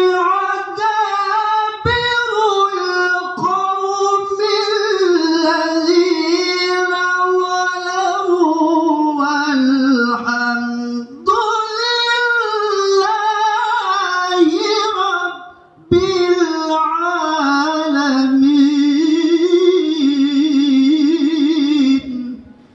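A man reciting the Qur'an in the melodic tilawah style, holding long, ornamented high notes. The voice breaks briefly about 11 seconds in, pauses for breath about 16 seconds in, and stops shortly before the end.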